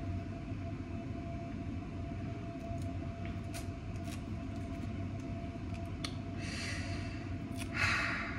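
A steady low mechanical hum, with a few light clicks and two short rustling hisses near the end.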